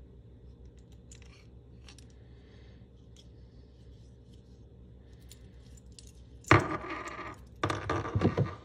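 Light clicks of a Honda keyless remote fob being handled as its metal emergency key is slid out, then two bursts of metal keys and key ring clinking and jangling near the end, the first starting sharply and loudest.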